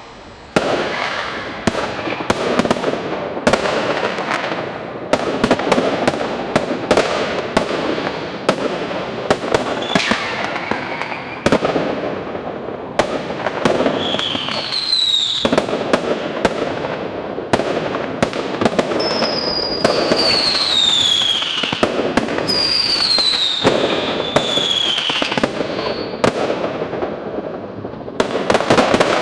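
Fireworks going off: a dense run of sharp bangs and crackling, with several whistles that fall in pitch in the second half.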